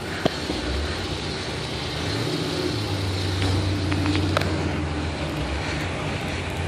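A car engine running close by: a steady low rumble that swells through the middle and eases off, with a couple of short clicks.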